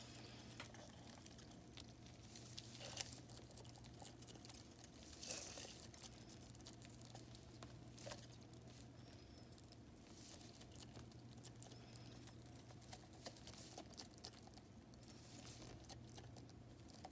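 Near silence with faint scattered clicks and scratches, a few a little louder: a bearded dragon catching live crickets from a clear plastic cup, its tongue and snout pushing into the cup.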